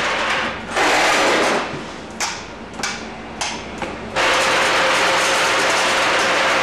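High-speed pet-food packaging machine running, with hard dog biscuits clattering through its feeder. The rattling clatter drops away about a second and a half in, leaving a few sharp clicks, then starts up again steadily about four seconds in.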